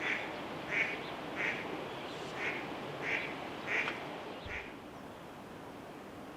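A duck quacking, a series of seven calls about two-thirds of a second apart, the last one weaker.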